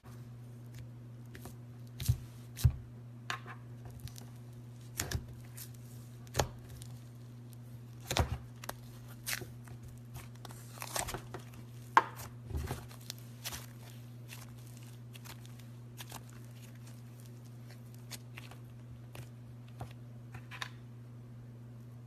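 Hands squeezing and poking slime, giving irregular sharp crackles and pops like a crunchy slime, over a steady low hum.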